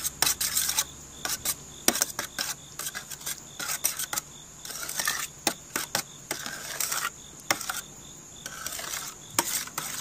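A spoon stirring thick ketchup-based barbecue sauce in a metal pot, scraping and clicking against the pot's sides and bottom in irregular strokes. The sauce is still on the thick side.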